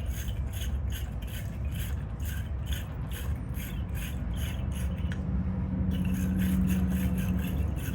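Wire-brush battery terminal cleaner scraping corrosion off battery terminals in quick back-and-forth strokes, about three a second, with a short pause about five seconds in. A steady low hum runs underneath.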